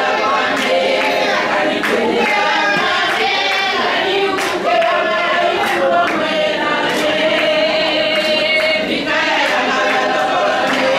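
A group of women singing together without instruments, with hand claps keeping time at about one and a half claps a second.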